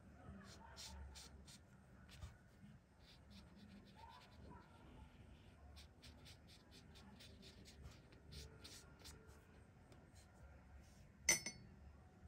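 Watercolour brush working on paper: faint, irregular scratchy strokes. About eleven seconds in comes a single sharp click with a brief ring.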